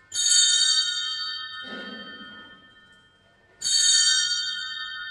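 Altar bells rung twice, about three and a half seconds apart, each stroke a bright cluster of high tones that rings on and fades slowly.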